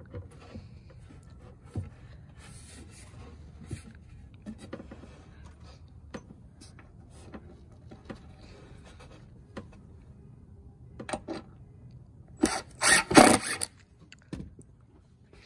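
Plywood roof panels being shifted and lined up by hand: soft rubbing and small taps of wood on wood, then a short run of louder scraping knocks near the end.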